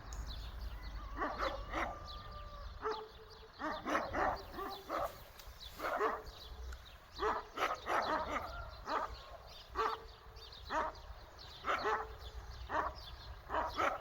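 Many short animal calls in quick succession, one to three a second, a few of them drawn out into a held note.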